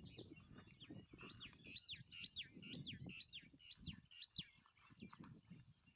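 Faint bird calling: a quick run of short chirps, each sliding down in pitch, several a second, starting about a second in and stopping after about four seconds, over faint low rustling.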